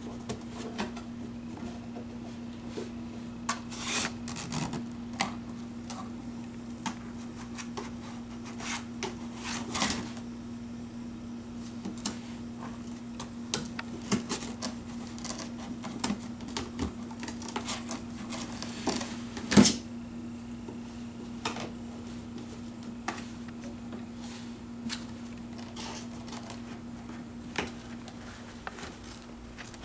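A bull mastiff–lab mix puppy's paws and claws tapping and scratching at a cardboard box, irregular light knocks and scrapes with one louder knock about twenty seconds in, over a steady low hum.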